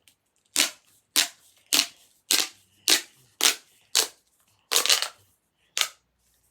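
Plastic pop tube fidget toy being stretched and squashed, giving about nine sharp popping snaps at roughly two a second, with two close together near the end.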